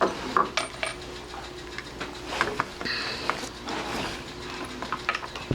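Scattered small clicks, taps and light rustling as hands handle door-lock parts during installation.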